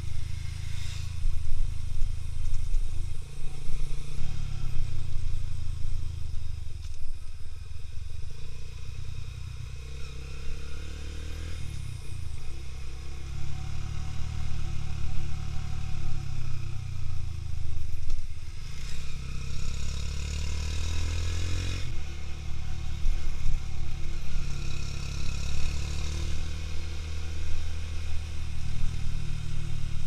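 A Honda New Megapro FI's single-cylinder engine running as the motorcycle rides, its note rising and falling with the throttle through the bends, with wind noise on the microphone.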